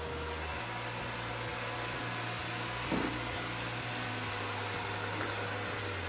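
Ecovacs Deebot N79S robot vacuum running across a tile floor, a steady whir of its motors and brushes, with a brief knock about three seconds in.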